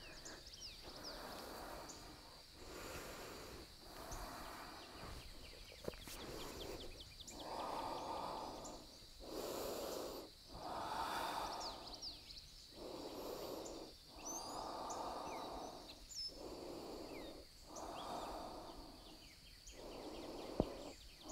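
A person breathing slowly and audibly while holding a yoga balance pose, in and out, each breath lasting about a second, with a faint steady high whine behind.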